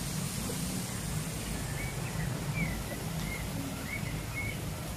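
Outdoor ambience: a steady low rumble, with a few faint, short high chirps from about two seconds in.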